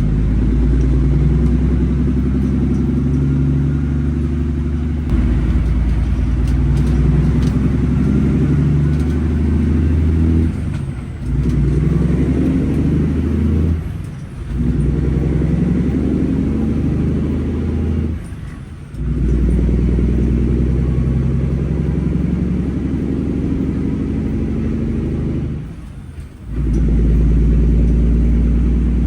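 Cummins diesel engine of an International 9900 semi truck under way on the road. The sound drops away briefly four times and comes back, as the engine works through gear changes.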